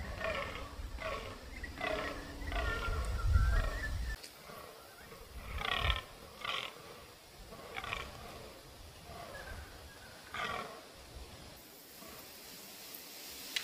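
Fallow bucks groaning in the rut: a run of short, deep, belching calls about two a second, then single louder groans a second or two apart. A low rumble sits under the first few seconds.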